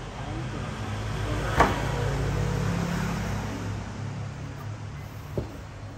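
Handling knocks as a mixing console is set into its hard case: one sharp knock about a second and a half in and a lighter knock near the end, over a steady low hum.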